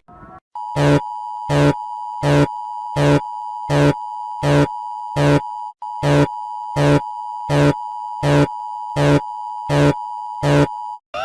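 Electronic emergency alert alarm: a steady buzzy tone with a louder beep pulsing over it about every three-quarters of a second, with a split-second break near the middle.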